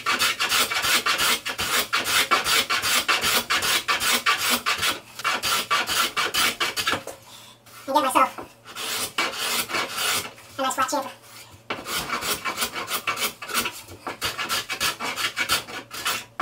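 A small hand chamfering tool is pulled in rapid short rasping strokes across the end grain of a pine board, cutting a bevel on its edge. The strokes stop in short pauses a few times.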